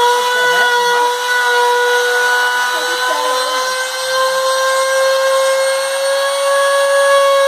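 Router spindle of a homemade CNC router running under load, its bit cutting the outline of a letter in a wooden board. It gives a loud, steady whine whose pitch drifts slightly up and then back down.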